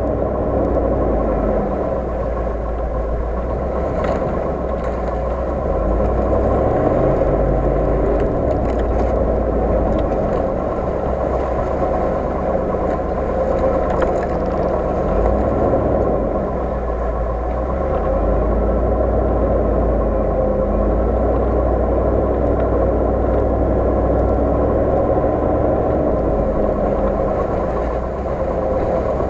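Off-road 4x4's engine running steadily as the vehicle drives along a rutted dirt track, heard close up from the bonnet.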